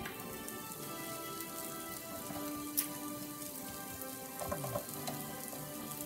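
Meat sizzling on a hot electric contact grill (a Foreman grill), a steady fine crackle like rain, with one sharp click about three seconds in.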